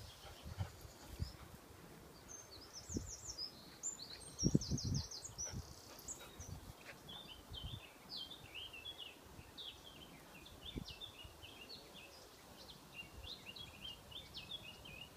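Swifts screaming overhead in a rapid run of very high, thin calls from about two to six seconds in, then a longer run of lower bird chirps through the rest. Low thuds on the microphone come through now and then, the loudest about four and a half seconds in.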